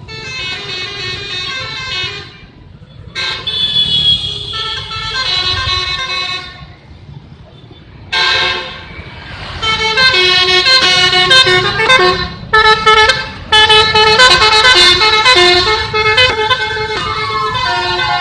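Bus telolet horn, a set of electric horn trumpets, playing melodic multi-note tunes in three loud bursts, the last and longest one beginning about eight seconds in. A steady low engine rumble runs underneath.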